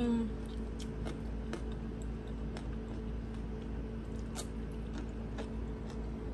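A person chewing a mouthful of rice with fried anchovies and peanuts in chili sauce: scattered, irregular soft crunching clicks over a steady low hum.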